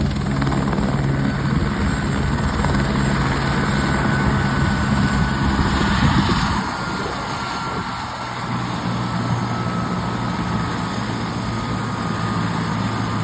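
Turbine helicopter running steadily: a low rotor drone with a thin turbine whine that slowly falls in pitch. The drone drops to a lower note about six to eight seconds in.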